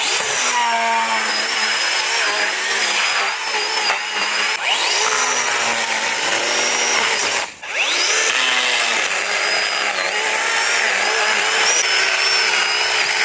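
Motorized power tool running hard under load, its pitch sagging and climbing again twice, with a dense high hiss throughout.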